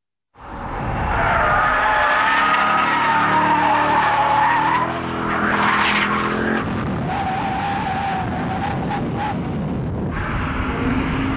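Tyres squealing hard as the Carlsson CM55 K, a tuned Mercedes SLK 55 AMG, slides sideways through a corner under power, with its V8 engine running loud underneath. The sound starts abruptly about half a second in, and the squeal shifts in pitch and character partway through.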